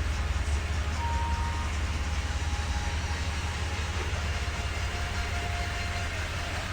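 Off-road 4x4 truck driving on a trail: steady low engine and drivetrain rumble under a constant haze of tyre and wind noise.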